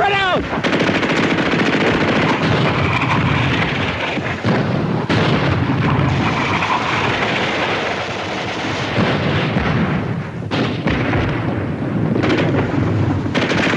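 Sustained battle gunfire, machine-gun fire among it, forming a dense, unbroken din with no let-up.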